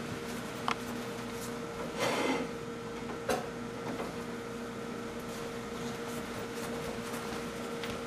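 Steady electrical hum, with a sharp click about a second in, a short clatter about two seconds in and another sharp click just after three seconds, from items being handled at a kitchen counter.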